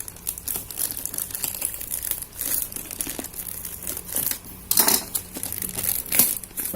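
Parcel wrapping crinkling and crackling as the package is handled and opened, with louder crackles about five and six seconds in.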